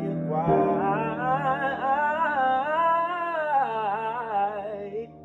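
A man singing one long held note with vibrato over sustained piano chords, his pitch swelling up and bending back down; the note stops suddenly near the end.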